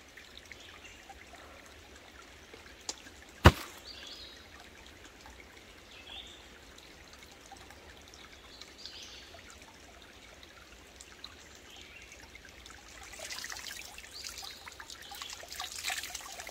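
Small woodland stream trickling faintly, with short high bird chirps every few seconds and one sharp knock about three and a half seconds in. A louder stretch of rustling noise comes over the last few seconds.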